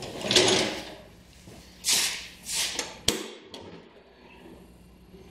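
Shuffling and rustling as a person climbs down off a compact tractor's seat, followed by a few brief handling noises and one sharp click about three seconds in.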